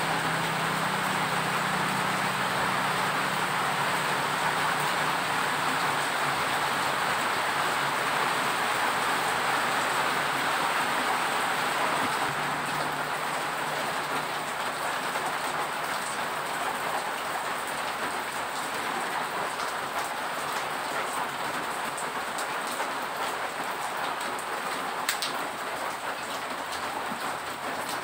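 A steady hiss, with a low hum that fades away over the first twelve seconds or so and one sharp click near the end.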